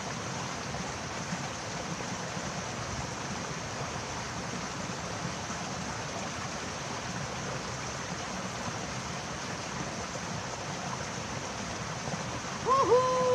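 Steady rushing of flowing river water. Near the end a person's voice briefly calls out a held note.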